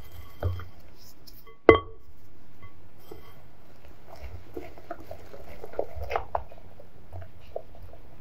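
Wire whisk stirring thick chocolate batter in a glass bowl: soft wet squishing with light ticks of the wires against the glass, and one loud ringing clink of the whisk striking the bowl a little under two seconds in.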